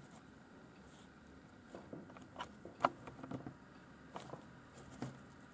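Scattered small clicks and light taps from the metal joints and magnifier arm of a helping-hand tool being handled and positioned, the sharpest click a little under three seconds in.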